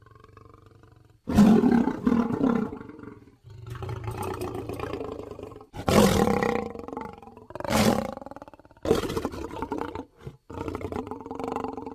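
Asiatic lion roaring in a string of separate calls, each a second or two long with short gaps between them, starting and stopping abruptly; the loudest come about a second in and around six seconds in.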